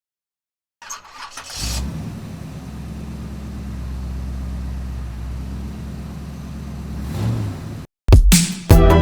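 A car engine starts and idles steadily, swells briefly in a small rev, then cuts off abruptly. Loud music with a beat starts about a second before the end.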